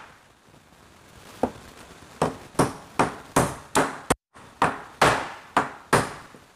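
Steel claw hammer striking a nail into a wooden board: a steady run of about ten sharp blows, two to three a second, starting about a second and a half in.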